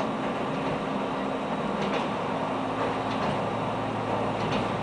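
Diesel railbus 630M-001 running, heard from inside the passenger car: a steady running noise with a low engine drone and a few faint clicks.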